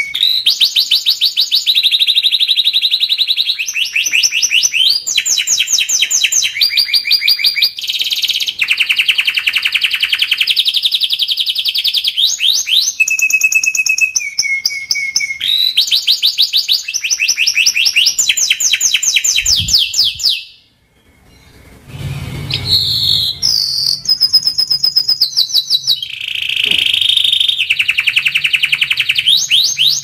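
Domestic canary singing a long song of rapid trills, each a fast run of repeated high notes that shifts to a new pitch every second or two. The song breaks off briefly about two-thirds of the way through, then resumes.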